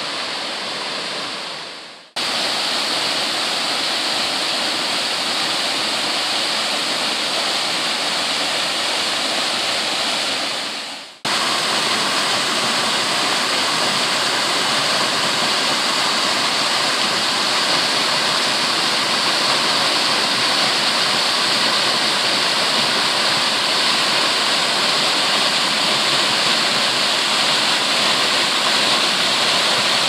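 Waterfall pouring down rock ledges into a pool, a steady rush of falling water. The sound dips out briefly about two seconds in and again about eleven seconds in, then returns at once.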